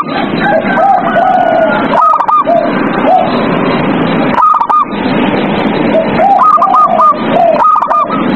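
Zebra doves (perkutut) cooing: quick runs of short, arched notes, some higher and some lower in pitch, recurring every second or two over a steady hiss.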